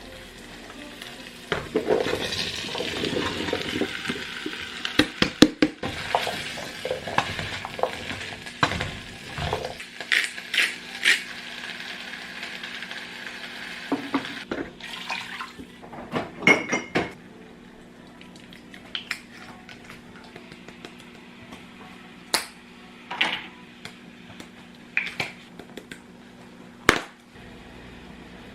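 Tap running into a sink while dishes and pots clink and clank, about fifteen seconds long; after the water stops, scattered single clinks and knocks of dishes being handled.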